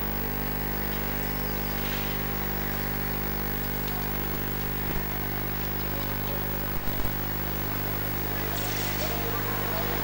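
Street traffic with a steady hum underneath, and a car driving closer along the road near the end.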